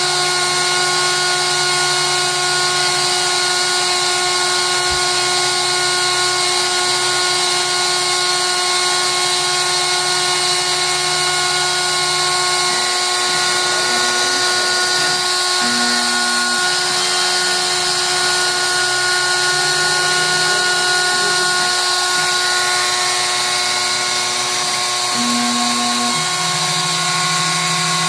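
Proxxon rotary tool running as the spindle of a hobby 3-axis CNC router, a steady high-pitched whine as its bit cuts into a wooden sheet. Lower tones under the whine change pitch now and then from about halfway through.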